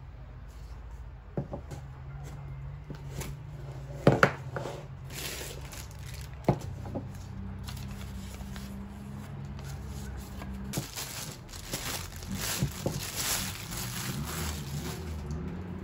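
Paper and plastic packaging crinkling and rustling as a new tumbler is unwrapped by hand, with a few sharp knocks about four and six seconds in and denser crinkling in the second half.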